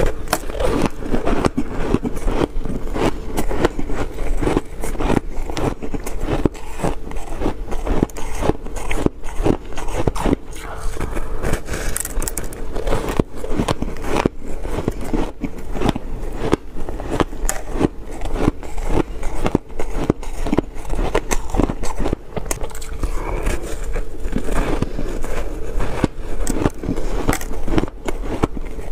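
Crunching of dry, refrozen shaved ice as a slab is bitten and chewed: a dense, steady run of crisp crackles and crunches.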